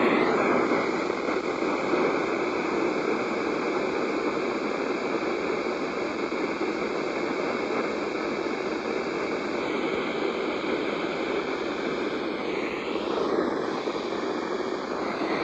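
Steady hiss of radio static from a weather radio receiver on a weak signal, with faint thin tones running through the hiss.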